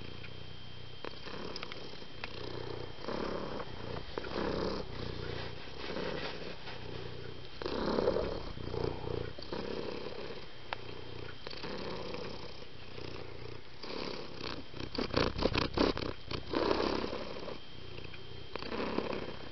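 Domestic cat vocalizing in short, repeated calls about once a second, with louder calls about eight seconds in and near the end. A quick run of clicks comes shortly before the end.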